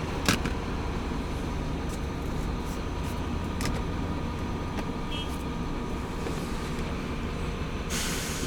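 Steady low vehicle rumble, with a few faint clicks and a rise in hiss near the end.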